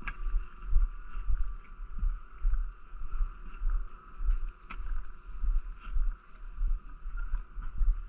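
Wind buffeting a moving camera's microphone in irregular low rumbling surges, over the steady hiss of a snowboard sliding across groomed snow.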